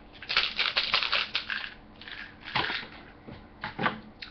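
Crunching, crackling handling noises close to the microphone: a quick run of them in the first second or two, then two more single ones later.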